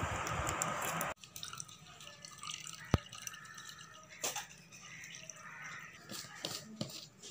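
Water poured from a plastic bottle into a steel bowl of liquid, trickling and dripping faintly. A steady hiss stops abruptly about a second in, and there is one sharp click near three seconds.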